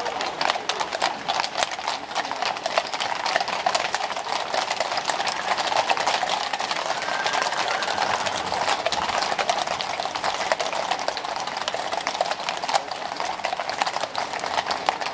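Many horses' hooves clip-clopping at a walk on brick street paving. The hoofbeats overlap into a continuous clatter.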